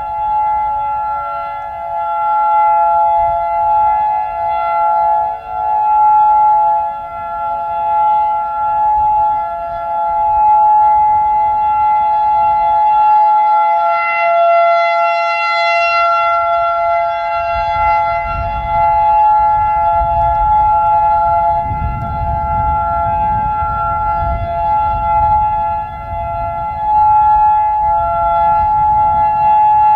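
Several outdoor warning sirens sounding a steady alert together. The nearby Federal Signal 2001 rotating siren holds a steady wail that swells and fades as it turns, and more distant sirens harmonize with it. Gusts of wind rumble on the microphone, strongest in the second half.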